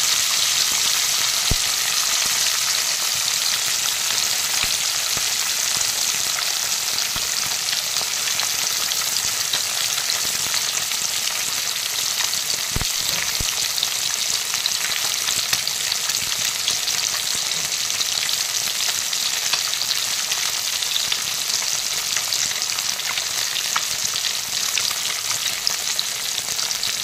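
Fish steaks frying in hot oil in a black iron wok: a steady sizzle with fine crackling throughout.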